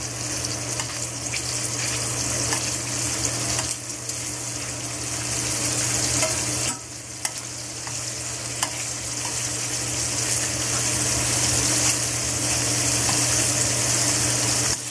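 Jumbo shrimp searing in olive oil in a stainless steel pan on high heat: a steady sizzle with a few light ticks, dipping briefly about seven seconds in.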